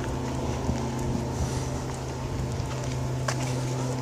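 A steady low mechanical hum, with a few light footsteps on paving.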